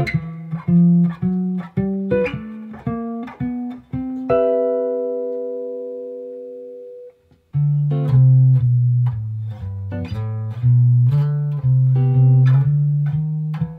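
Clean-toned semi-hollow electric guitar playing ii–V–I jazz comping in C: short chord stabs on D minor 7, G7 and C major 7, joined by single bass notes walking between them. The first pass ends on a chord left ringing for a few seconds. After a brief pause a second pass starts.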